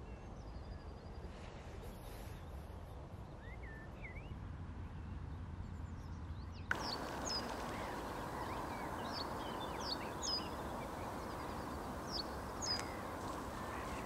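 Outdoor pond ambience with a steady low rumble and small birds calling in short, high, repeated chirps. The background changes abruptly about halfway in, and the chirping grows busier after that.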